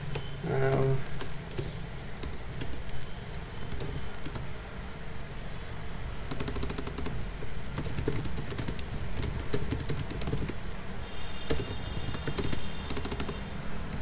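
Computer keyboard typing: bursts of quick key clicks, sparser in the first half and denser in the second.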